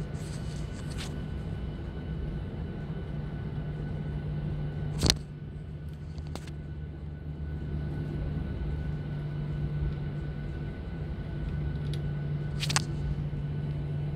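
Steady cabin hum of an airliner's jet engines running at low power on the ground, heard from inside the cabin. A sharp click about five seconds in, the loudest moment, and a smaller one near the end.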